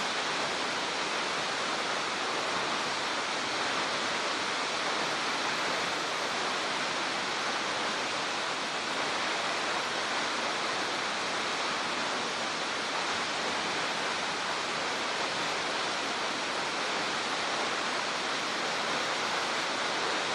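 Steady, even rushing roar of Nishi-Shiiya Falls, a tall 86 m waterfall plunging into its pool.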